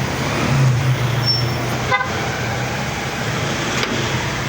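Microwave oven running, its transformer and magnetron giving a steady low hum while heating a wet rag placed inside as a test load; the repaired oven's heater is now working. A sharp click about two seconds in, and another near the end.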